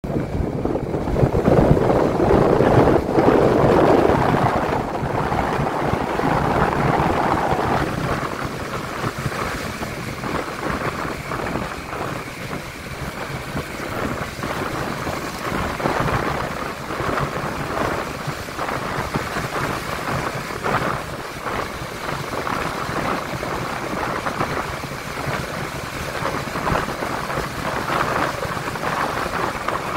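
Wind rushing over the microphone, mixed with the engine and road noise of a Honda CB150X single-cylinder motorcycle under way. It is loudest over the first few seconds, then settles to a steady rush.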